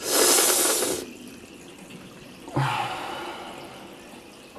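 Water from a bathroom sink tap running and splashing over a hand into the basin. It is loudest for about the first second, then runs on more quietly. About two and a half seconds in comes a short, low breathy vocal sound with a further rush that fades away.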